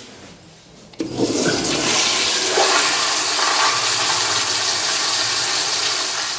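Commercial flushometer toilet flushing: a sudden loud rush of water starts about a second in, holds steady, and begins to fade near the end.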